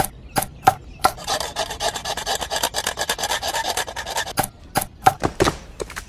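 A small blade chopping and scraping at wood: a few sharp knocks, then about three seconds of rapid scraping strokes, then several more knocks.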